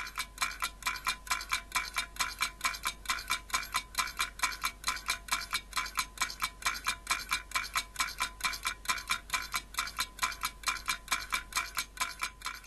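Steady, rapid ticking like a clock or timer sound effect, even clicks about four or five a second.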